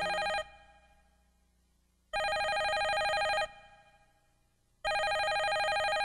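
A telephone ringing in evenly spaced rings about every two and three-quarter seconds, each ring about a second and a quarter long with a fast warble. One ring ends just after the start, one full ring comes in the middle, and another begins near the end.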